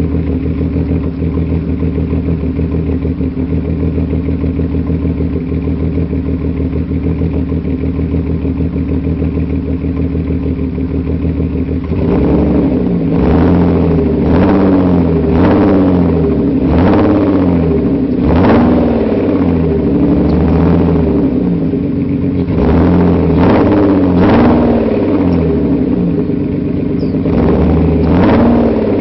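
Mercedes-Benz W124's engine through a homemade muffler, idling steadily, then from about twelve seconds in revved in repeated short blips, each rising in pitch and falling back to idle.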